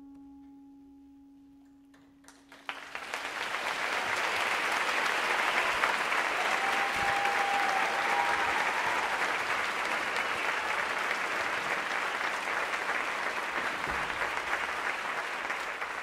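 The last acoustic guitar chord rings out and fades. About two and a half seconds in, an audience starts applauding, and the clapping holds steady to the end.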